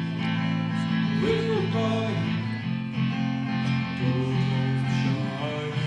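Acoustic guitar played live, chords ringing on steadily.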